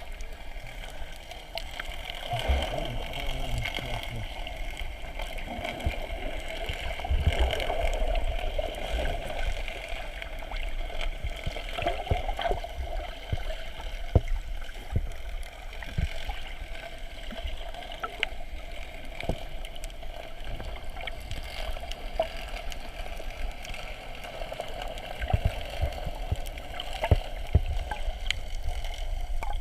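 Water sloshing and gurgling around the camera, with scattered knocks and clicks.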